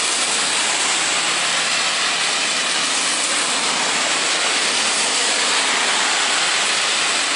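Steady, even hiss of rain falling on a wet road and bridge.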